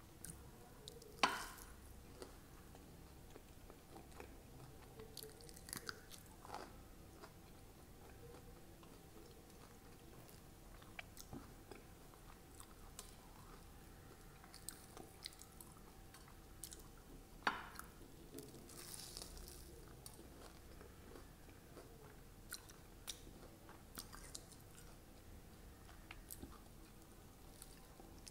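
Close-miked chewing and biting of crispy fried sabudana vada (tapioca pearl fritters), with small crunches scattered throughout. Two louder sharp crunches come about a second in and a little past halfway.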